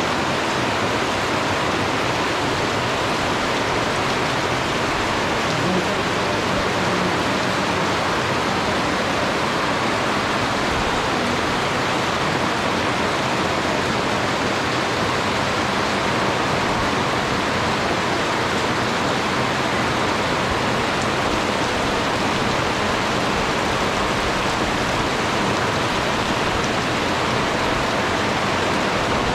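Steady rain falling, an even hiss that does not change in level.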